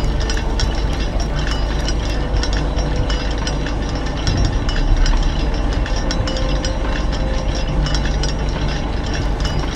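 Heavy machinery rumbling steadily under many irregular metallic clanks and knocks, an added industrial-yard sound effect.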